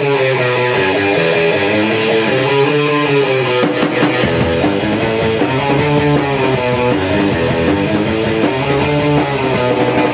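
Electric guitar strumming a rock chord riff, with a drum kit coming in with cymbal hits about three and a half seconds in and the band then playing together.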